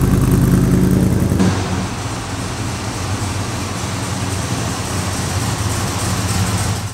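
1957 Chevrolet Suburban panel truck's freshly built 350 small-block V8 running steadily as the truck rolls slowly forward.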